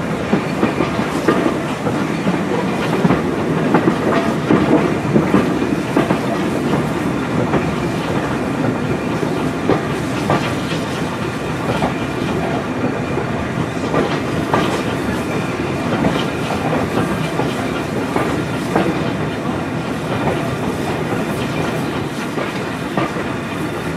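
Vintage railway coach running along the track: wheels clicking over rail joints at irregular intervals over a steady running rumble, heard from an open coach window.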